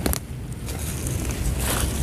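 Dry rice straw and stubble rustling and crackling as a hand picks low field greens among them, in short bursts at the start and again near the end. Wind rumbles on the microphone underneath.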